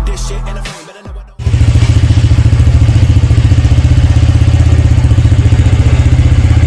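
TVS Ntorq 125 Race XP scooter's single-cylinder engine idling with an even, steady pulse. It starts suddenly about one and a half seconds in, after music fades out.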